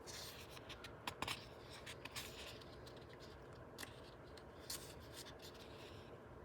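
Faint paper rustling and light handling clicks from the pages of a book, busiest in the first few seconds, with a couple of lone ticks later.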